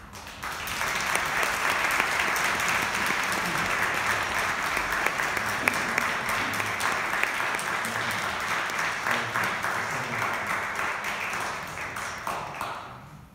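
Congregation applauding, starting about half a second in, holding steady and dying away near the end.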